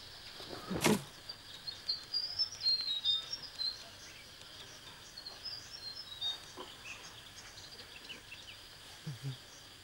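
Small birds chirping in quick short calls over a steady faint high hiss of outdoor ambience, with one sharp knock about a second in.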